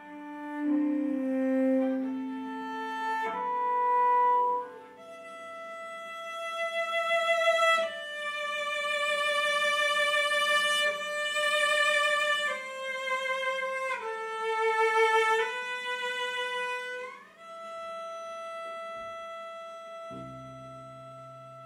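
Solo cello played with the bow: a slow melody of long held notes with vibrato, climbing into a higher register in the middle. It settles on a long, quieter held note near the end, with a low note sounding under it.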